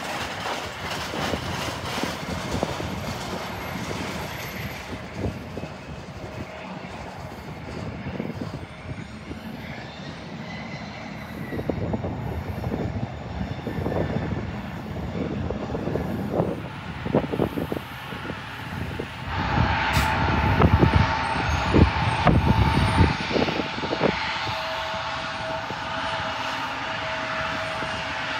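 Jet aircraft engines running: a continuous rushing roar that steps up in level about two-thirds of the way in, with a steady whine on top from then on.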